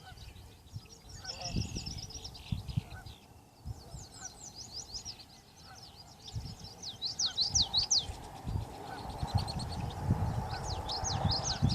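Birds calling outdoors: rapid clusters of high, sweeping chirps, loudest in the second half, over scattered low thumps.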